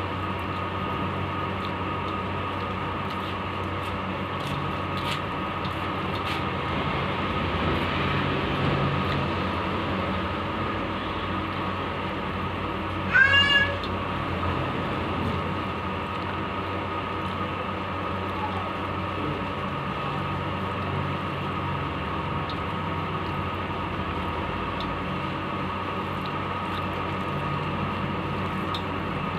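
A cat meows once, a short call that bends up and then down, about halfway through, over a steady background hum.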